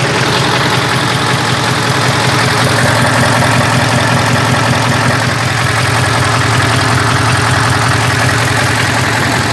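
V8 diesel truck engine idling steadily at about 600–650 rpm with its turbocharger removed, a rather noisy idle.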